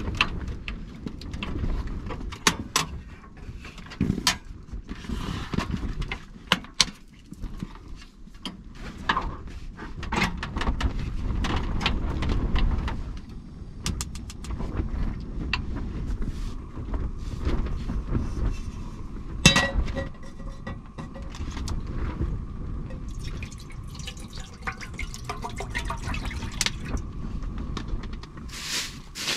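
Knocks, clicks and clatter of camp gear being handled and set down on a foam floor mat: a portable propane heater and stove arranged and a pot set on the stove. Liquid sounds, as of water being poured, and a faint steady tone run through the second half.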